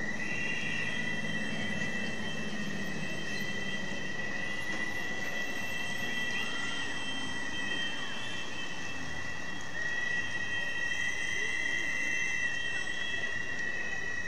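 Street noise of a marching crowd with steady, high-pitched whistling tones held over it, a little louder from about ten seconds in.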